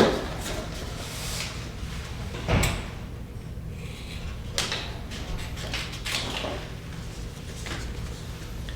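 Kinesiology tape being applied to a knee: a few short peeling and rubbing sounds of tape and backing paper, the loudest right at the start and another about two and a half seconds in.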